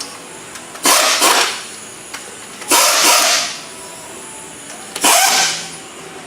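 Three short, hissing bursts of a pneumatic air tool, about two seconds apart, each lasting around half a second.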